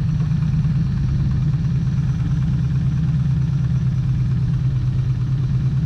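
Jet boat's supercharged LS V8 running steadily while under way, a constant low drone with no change in pitch.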